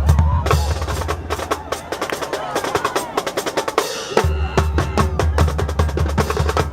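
Marching band percussion section playing: rapid snare drum strokes and rolls over pounding bass drums, stopping at the end.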